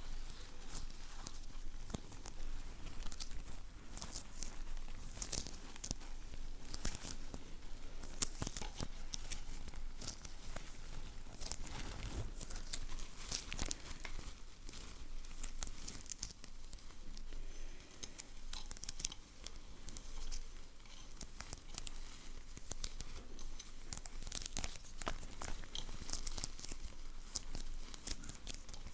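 Close-miked ASMR sticky sounds: peeling, tearing and crinkling of material, made of many quick, irregular crackles.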